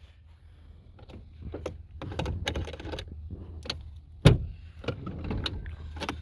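Clicks, rattles and clunks of a 2008 Toyota Sienna sliding door's handle and latch mechanism being worked by hand, with a sharp knock about four seconds in. The mechanism is stiff and hard to pull.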